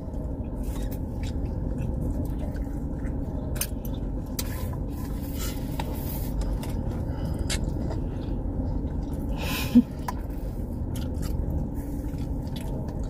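Chewing of a deep-fried corn dog, with scattered short crisp clicks, over a steady low hum in a car cabin.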